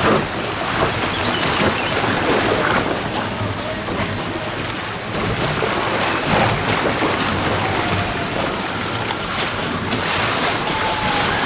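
Rushing, churning water in a log flume ride's channel as the floating log boat is carried down the rapids, with wind buffeting the microphone. The noise is steady throughout.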